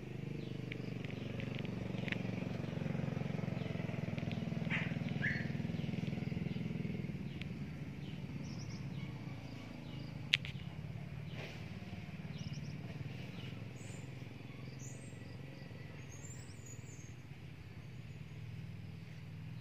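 Low engine drone of a motor vehicle passing, swelling over the first few seconds and then slowly fading. Scattered short bird chirps and a single sharp click about ten seconds in.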